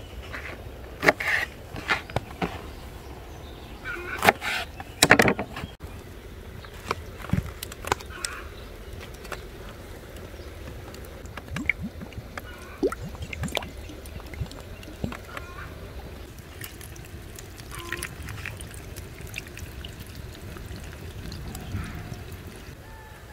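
Knife chopping green peppers on a wooden cutting board: a handful of sharp chops in the first six seconds. Then scattered lighter knocks and liquid poured over a metal tray of food.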